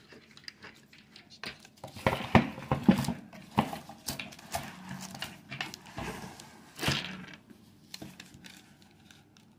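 Handling sounds as a book is taken out of a homemade wooden book press: the wooden press boards knocking and clicking, with parchment paper and cloth rustling and crinkling, loudest about two to three seconds in and again near seven seconds.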